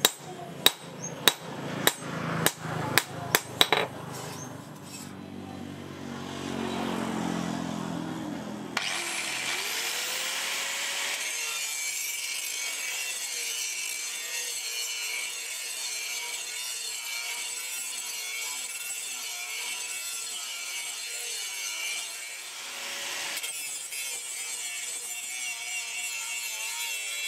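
Hammer blows on a steel sprocket blade lying on an anvil, about eight sharp strikes in the first four seconds. About nine seconds in, an electric angle grinder starts, its whine rising as it spins up, then grinds the steel blade steadily with an abrasive disc, easing off briefly about two-thirds through.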